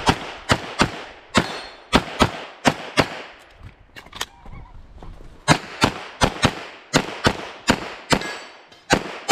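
Semi-automatic pistol fired rapidly in quick pairs, about two to three shots a second, with a break of about a second a little before the middle.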